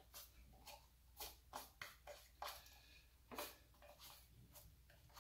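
Near silence with faint scattered clicks and light rustles from a hand handling the engine's coil packs and wiring loom.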